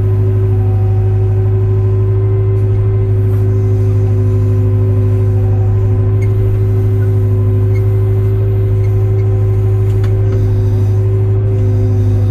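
Hyundai 02-class excavator's diesel engine running steadily at a constant speed, with a fainter higher tone that comes and goes several times.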